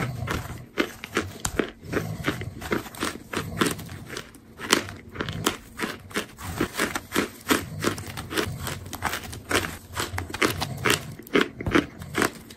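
Dry cornstarch chunks being chewed close to the microphone: a rapid, irregular run of sharp crunches and squeaks, several a second.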